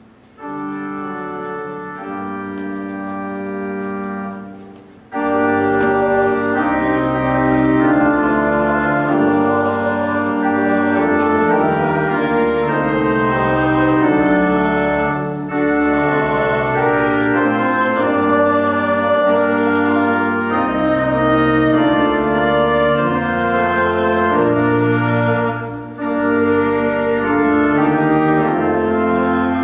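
Church organ playing a hymn, starting softly about half a second in and growing fuller at about five seconds, with short breaks between phrases.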